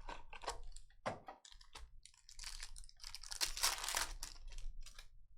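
Trading-card packaging being torn open and crinkled by hand: a few sharp rips and rustles, then a denser crinkling of wrapper about halfway through.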